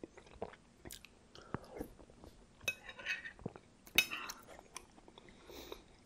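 Close-miked eating sounds: wet chewing of broccoli cheddar soup, with a metal spoon clinking and scraping against a glass bowl in several sharp clicks, the loudest about four seconds in.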